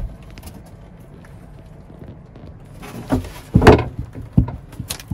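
Knocks and thumps of hand work on a thin wooden trim strip being pressed into place against a curved cabin panel: a low thump at the start, then a cluster of sharp knocks in the second half, the loudest about two-thirds of the way in.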